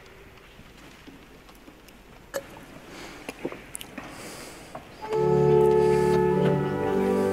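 Church pipe organ entering with a full held chord about five seconds in, after a few seconds of scattered faint knocks and rustles.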